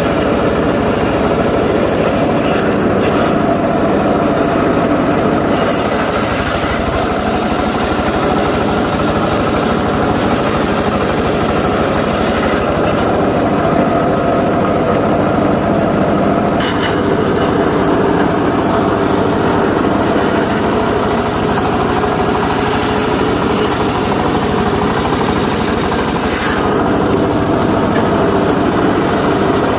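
Engine-driven homemade circular saw running steadily while cutting johar timber. A brighter, higher hiss comes and goes in long stretches as the blade works through the wood.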